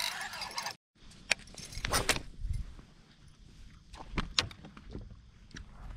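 A cast on a baitcasting reel: the line hisses off the spinning spool for under a second. After a short gap come scattered sharp clicks and a few low knocks of fishing gear handled in the boat.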